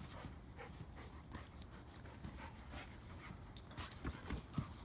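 Two dogs play-fighting on a trampoline: scuffling with scattered light clicks and thumps, and a few louder thumps about four seconds in.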